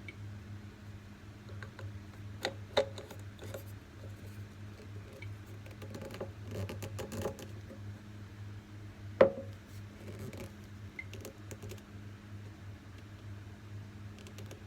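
Scattered clicks, taps and knocks of small hard parts being handled, with two sharper knocks about three and nine seconds in, over a steady low hum.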